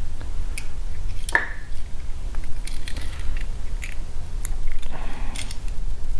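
Small irregular clicks and taps of a plastic key fob and its metal key being handled, over a low steady hum.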